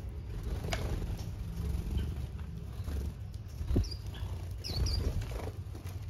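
Small aviary finches and canaries feeding from a wooden seed tray: scattered sharp pecking taps and rustling in the seed, with a couple of brief high chirps about five seconds in, over a low steady rumble.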